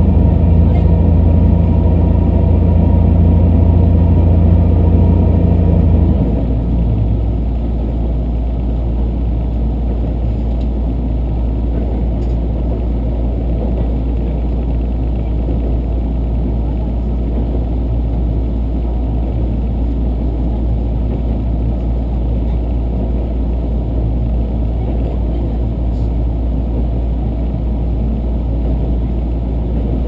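Diesel limited express train heard from inside the passenger car: the engine drone under power stops about six seconds in, leaving a lower steady rumble of the train coasting along the track.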